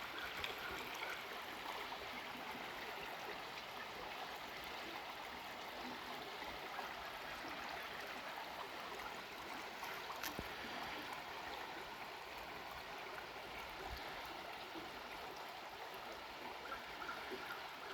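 A shallow creek flowing and trickling over rocks, a steady rushing babble with a faint click or two.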